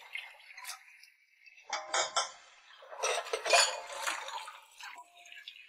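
Dishes and cutlery clattering as they are washed by hand at a kitchen sink. A few sharp clinks come about two seconds in, then a louder run of clatter about a second later.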